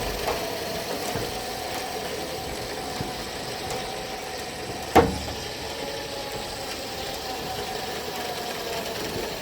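An engine running steadily, with one sharp knock about five seconds in.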